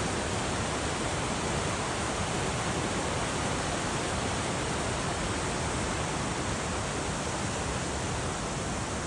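Steady rushing of a glacial mountain stream or waterfall, an even roar of water that neither rises nor falls.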